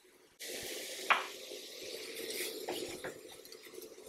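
A spoonful of water hitting a hot nonstick pan of sugared strawberries, starting a sudden sizzle about half a second in. A spatula then stirs the fruit, with a few knocks against the pan, the first the sharpest.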